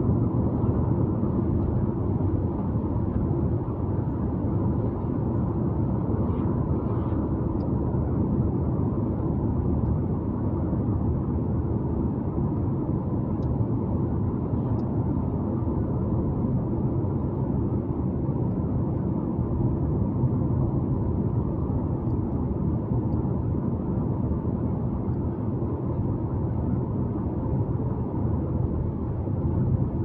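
Steady low rumble of a car driving along the road, with no change in level.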